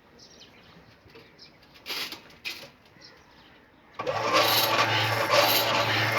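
Two short knocks, then about four seconds in a machine starts up and runs loudly with a steady low hum.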